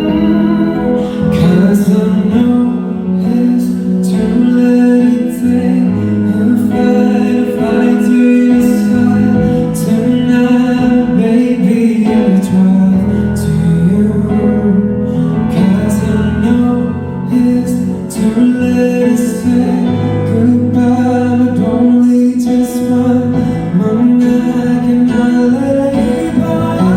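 Live band playing a pop ballad, with guitar, drums and a voice singing over it.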